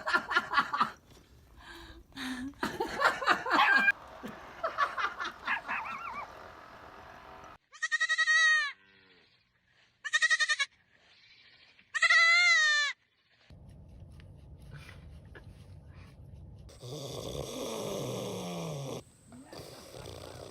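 Bleating livestock: three loud, drawn-out bleats a couple of seconds apart, each wavering in pitch. Shorter voice-like calls come before them.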